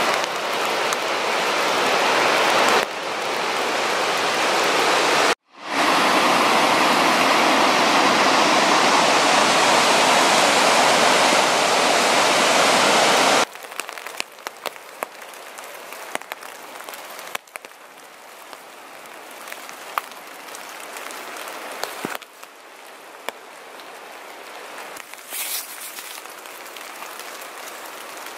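Cummins Falls waterfall rushing, a loud steady roar, with a brief break about five seconds in. About halfway through it drops suddenly to a much quieter steady hiss with scattered light ticks.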